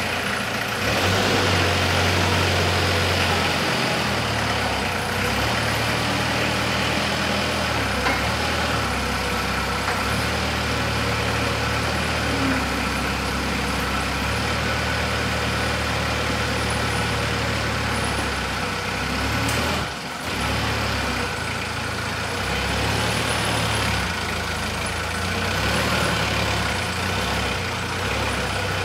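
Toyota 30 forklift's engine idling with a steady drone. The low end swells and eases a little, and the sound dips briefly about two-thirds of the way through.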